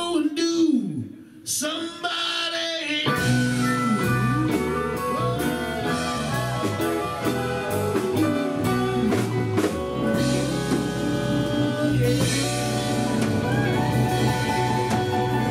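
Live blues band. A lone singing voice with sliding notes is heard for the first few seconds. About three seconds in, the full band kicks in with drum kit, bass and guitar, playing a steady beat under the singing.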